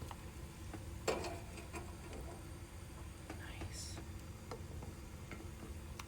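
Eggs being set one at a time into a pot of boiling water: light taps and clinks against the pot, with one sharper clink about a second in.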